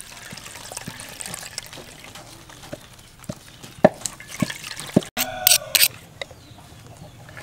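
Coconut milk dripping and splashing into a stainless steel bowl as grated coconut is squeezed by hand through a wire-mesh strainer, in irregular drips. Then a brief harsh sound about five seconds in.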